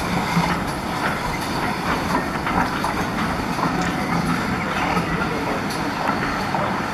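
Railway train moving slowly: a steady rumble with scattered clicks and clanks from the wheels and rails.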